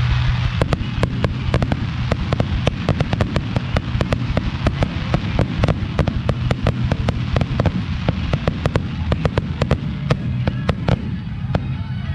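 Aerial fireworks going off in a rapid barrage: a dense string of sharp bangs, about four or five a second, starting about half a second in and stopping about a second before the end.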